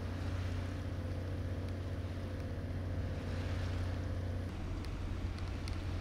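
Sailing yacht's diesel engine running steadily under power in a calm: a low, even drone with a hiss of water and wind over it.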